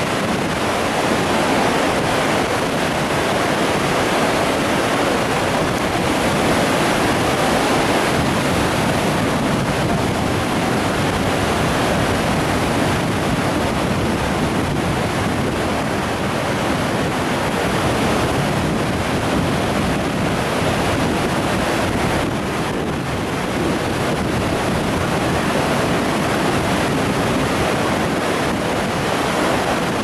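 Loud, steady roar of Khone Phapheng Falls on the Mekong: wide cascades and rapids of churning water pouring over rock ledges.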